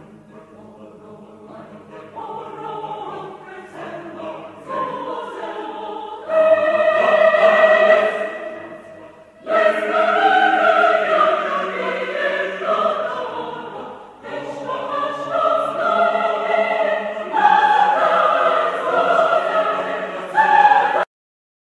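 Recorded excerpt of Macedonian classical choral music: a choir sings sustained phrases that swell from quiet to loud in waves, then cut off suddenly near the end.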